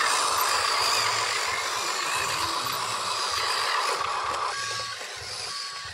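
Radio-controlled dump truck's electric drive motor and gears whining steadily as it drives loaded with dirt. The whine drops away about four and a half seconds in.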